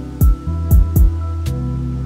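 Background music: held low tones with several deep drum hits and light, high cymbal-like ticks.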